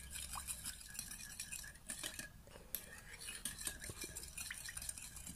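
Metal spoon stirring a thin sauce in a glass bowl, with many light clinks and scrapes against the glass.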